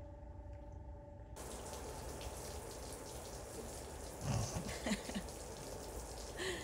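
A low hum for about the first second and a half, then a steady hiss of rain pattering on the greenhouse roof, with a few faint low sounds about four to five seconds in.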